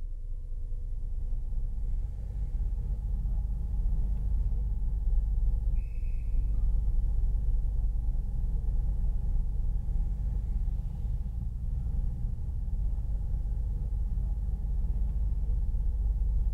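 Docklands Light Railway train running, a steady low rumble that builds over the first few seconds and then holds level. A short high tone sounds once, about six seconds in.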